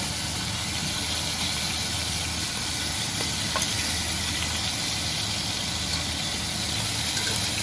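Beef roast searing in hot olive oil in a stainless steel pot: a steady sizzle, over a low steady hum, with a couple of light clicks of metal tongs against the pot about three and a half seconds in.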